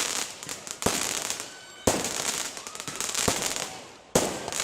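Aerial fireworks shells bursting: a sharp bang every second or so, each trailing off into crackling.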